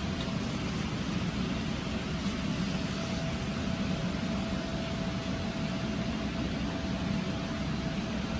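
Steady hum and hiss of running machinery, with a faint constant whine above it; no separate clicks or strokes stand out.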